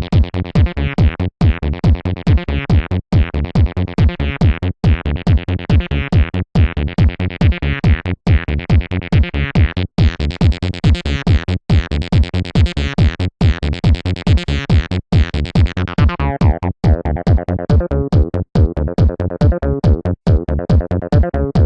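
Acidcore electronic music: a fast, steady drum-machine beat under repeating synthesizer lines, with a brief gap about every bar and a half. About sixteen seconds in, the bright top of the sound is filtered away, leaving a duller, darker mix.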